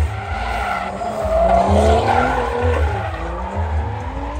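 A car drifting: its engine revs rise and fall, peaking about two seconds in, with tyre squeal. Music with a steady bass beat about twice a second plays underneath.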